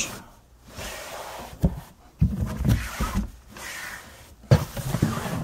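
Cloth-covered cardboard storage box being pulled out of a shelf cube: a few stretches of scraping and rustling as it slides, with a sharp knock about four and a half seconds in.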